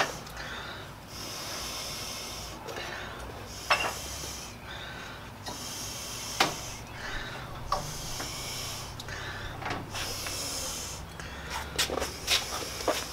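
A stainless steel tube being worked into the Shopsmith's headstock by hand: a series of scraping hisses, each about a second long, as metal slides against metal, with a few sharp metal clinks.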